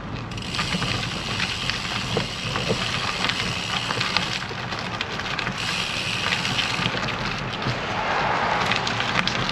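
Road bicycle tyres rolling over loose gravel, a steady crunching hiss full of small crackles and pops from the stones.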